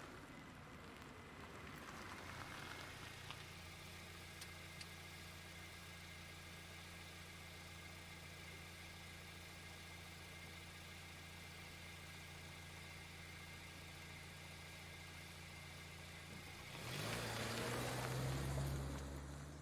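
Car engine idling steadily, then near the end revving up and pulling away, with a louder rush of engine and tyre noise for about three seconds.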